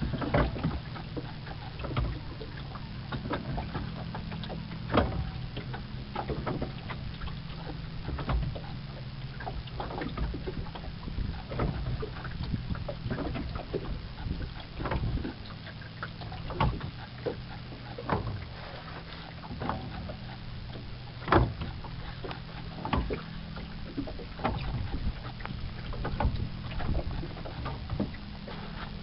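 Sculling oar working in the stern mount of a small wooden boat fitted with a Godyoto automatic sculling crank: irregular sharp knocks and clicks about once a second as the oar swings back and forth with a sharp twist at each end of the stroke. A steady low hum runs underneath.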